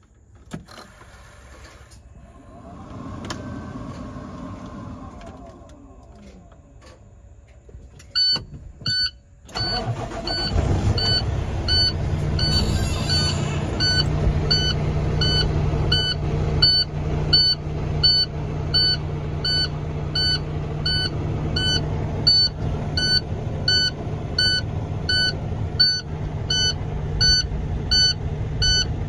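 2015 International truck's diesel engine cranked and firing up about nine seconds in, then idling steadily. A dashboard warning beep repeats evenly alongside it.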